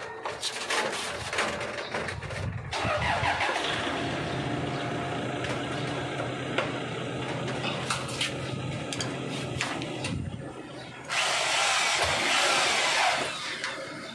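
Knocks and clicks, then a motor or engine running steadily for several seconds, followed by a louder rush of noise about eleven seconds in.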